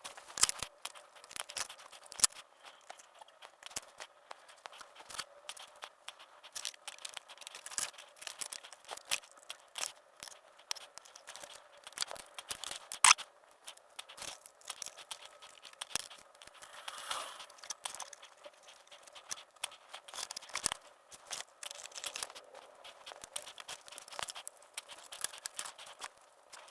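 Irregular small clicks, taps and rustles of hands working small plastic model-kit parts and tools, with a short scraping noise about two-thirds of the way through.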